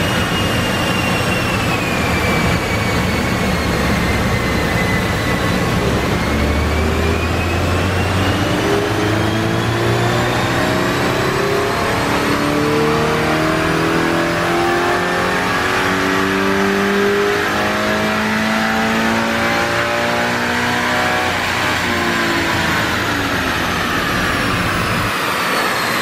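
Stock Toyota GR86's 2.4-litre flat-four engine running on a chassis dyno: it holds low revs, then makes a full-throttle pull with its pitch climbing steadily for about 16 seconds, then lifts off and winds down near the end. A high whine rises and falls with it.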